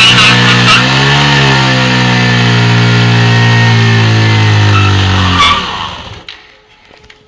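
Motorcycle engine held at high revs for a burnout, spinning the rear tyre. The revs sag briefly about a second in, climb back and hold steady, then the throttle is shut about five and a half seconds in and the engine sound falls away quickly.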